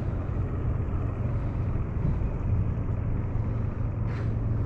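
Steady low engine hum under a wash of outdoor noise.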